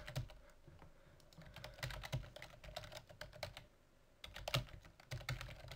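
Faint computer keyboard typing: a run of quick keystrokes, a short pause, then a second run.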